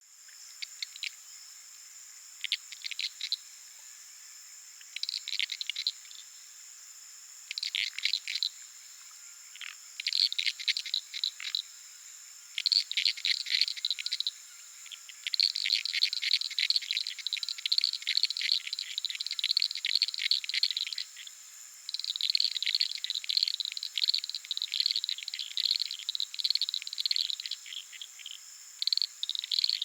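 Uruguay harlequin frogs (Lysapsus limellum) calling with rapid trains of clicks, at first in short bursts with gaps, then from about halfway in longer runs where several frogs overlap. Steady high-pitched tones sound beneath them throughout.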